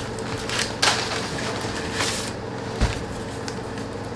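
Paper rustling in short bursts as packing paper and a note are handled, with a soft dull thump a little before three seconds in, over a faint steady hum.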